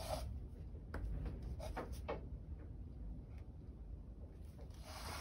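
Faint rubbing and scraping as a small canvas is shifted and turned on a cutting mat, with a few short taps of a paint dotting tool, over a low room hum. A longer slide comes near the end.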